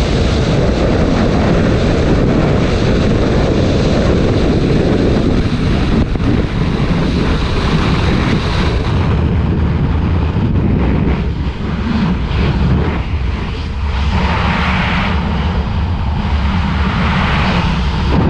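Loud, steady wind noise rushing over an action camera's microphone during a skydive from a helicopter. The sound thins partway through and gets brighter near the end.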